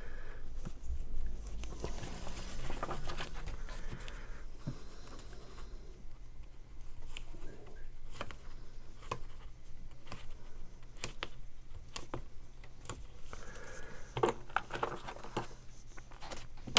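Paper and tape handling: soft rustling and scattered small clicks and taps as thin double-sided tape is laid around the curved edge of a cardstock box card.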